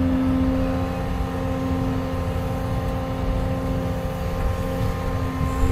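Caterpillar 335 excavator's diesel engine running steadily, heard from inside the cab: a low rumble with a steady whine over it, which fades a little before the end.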